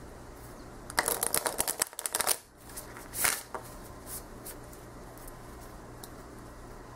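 Riffle shuffle of a new, thick-cardstock tarot deck. About a second in comes a rapid run of card edges flicking off the thumbs, lasting about a second and a half. It is followed by a shorter swish of cards and a few light taps.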